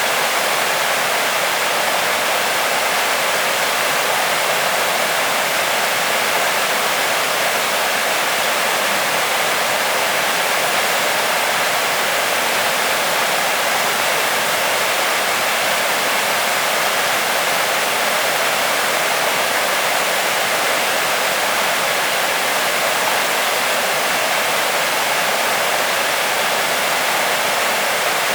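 Waterfall: water falling and splashing steadily, a continuous hiss-like rush with little deep rumble.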